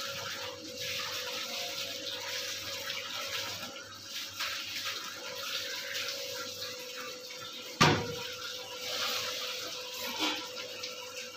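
Water running and splashing, with a steady machine hum underneath and one sharp knock about eight seconds in.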